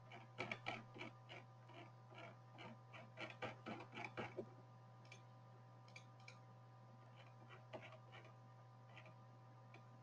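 Faint, rapid clicking at a computer, several clicks a second for the first four seconds or so, then a few scattered clicks, over a steady low hum.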